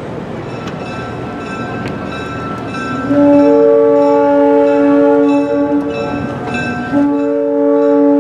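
Locomotive air horn sounding a chord of several notes in two long blasts, the first starting about three seconds in and the second about seven seconds in, over the rumble of a moving train.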